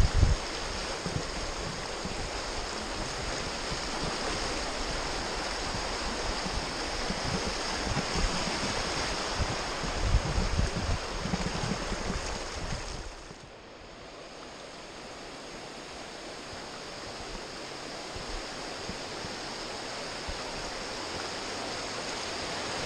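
River water rushing over shallow rapids around an inflatable raft, with low thumps in the first half. The rush drops suddenly about thirteen seconds in as the raft reaches calmer water, then slowly builds again.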